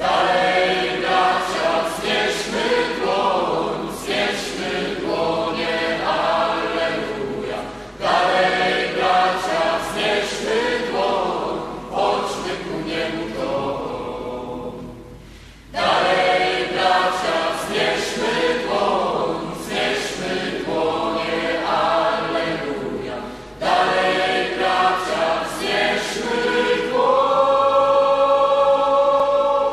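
Choir singing a Polish Mass song in phrases of about eight seconds, ending on a long held chord near the end.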